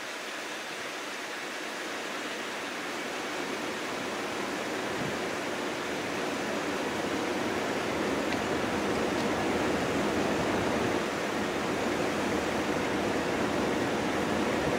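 Steady rushing noise of storm wind and rain, growing slowly louder for about ten seconds and then holding level.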